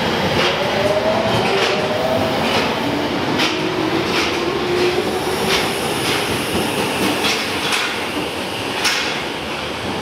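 Tokyo Metro subway train pulling out of the station and picking up speed. Its motors give a rising whine, and its wheels click repeatedly over the rail joints as it leaves.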